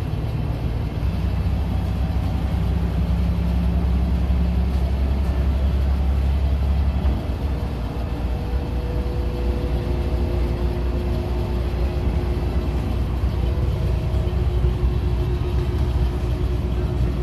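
Old Volvo city bus driving along, heard from inside the cabin: a steady diesel engine drone and road noise. The deep engine note eases about seven seconds in, with a faint steady whine above it.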